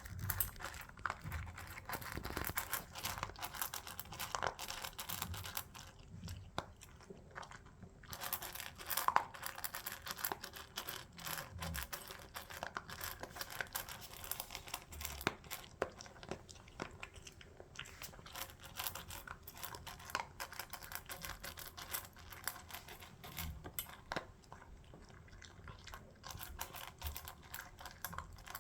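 A dog eating fast, gobbling its food so greedily it seems to hoover it up, with many quick irregular clicks and small noises of mouth and food.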